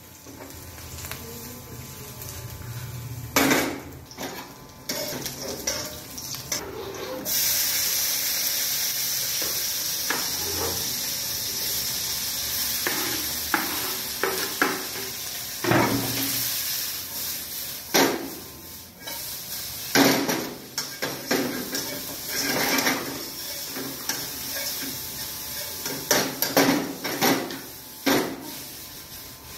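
Stir-frying vegetables in a wok on a gas stove: a steady sizzle starts about seven seconds in, with the clatter and sharp knocks of a ladle and knife against the wok and the chopping board.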